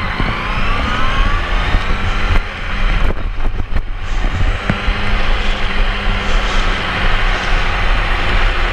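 Sport motorcycle engine running under way, its pitch climbing over the first second or so and then holding steady, with a heavy rumble of wind on the microphone.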